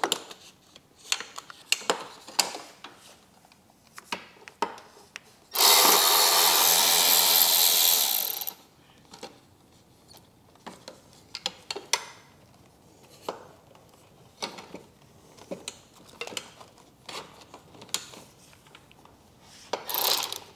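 Cordless ratchet with an 11 mm socket spinning a speaker-pod bolt out of a motorcycle fairing: one steady motor run of about three seconds, and a second short run near the end. In between come small clicks and knocks of the socket and tool against the bolts and fairing.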